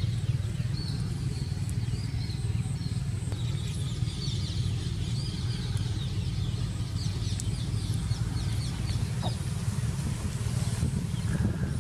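A steady low rumble, like a running motor or distant traffic, with small birds chirping over it.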